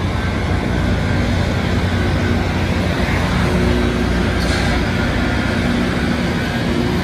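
Diesel engines of a Loram rail grinder running steadily: a low hum with several steady engine tones under a wash of noise.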